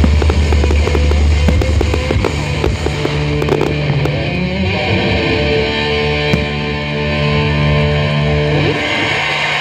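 Fireworks bangs and crackling over loud show music for the first few seconds. As the bursts die away, the music holds one long sustained chord that cuts off shortly before the end.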